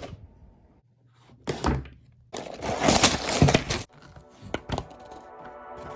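Handling noises from opening a kit box: a few separate knocks, and about two seconds in a second and a half of rustling and tearing.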